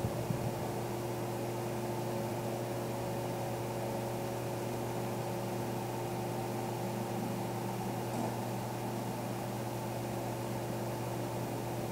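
Steady low electrical hum with a few held tones above it and a constant hiss; one faint click about eight seconds in.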